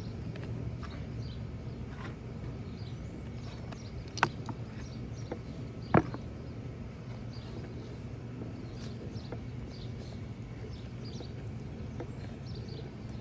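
Hands scraping and digging in packed soil in a bucket, with two sharp knocks about four and six seconds in, over a steady low hum.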